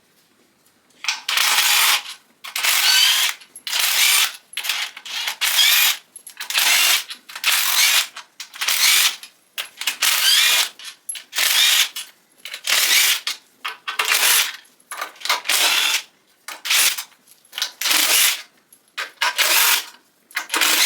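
Hand ratchet wrench working bolts loose on an LS1 V8 engine, clicking in repeated strokes about once a second.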